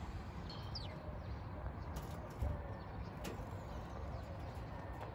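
Outdoor background with a steady low rumble, with a few faint bird chirps about half a second to a second in and a couple of soft clicks near the middle.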